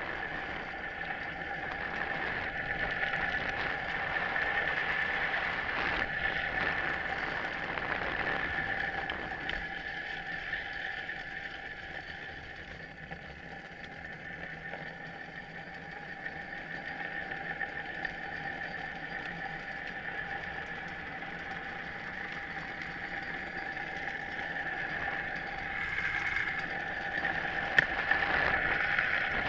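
Drift trike coasting fast downhill on asphalt: a steady rush of wind and rolling road noise, with a constant whine running through it and a single click near the end.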